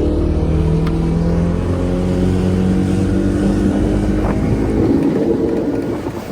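135 outboard motor accelerating a power catamaran, its pitch climbing steadily, over a rush of wind and water. The owner says it is running rich and doesn't run well.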